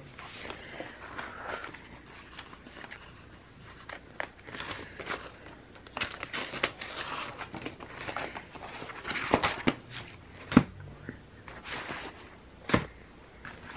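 Clear plastic sleeve pages of a disc-bound sticker binder rustling and crinkling as they are flipped and sticker sheets are handled, with a couple of sharp taps near the end.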